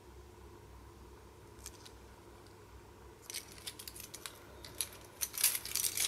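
Keyring with keys, a small pry tool and a tiny flashlight clicking and jingling as it is handled. Faint at first, then a run of light metal clinks from about halfway, growing busier near the end.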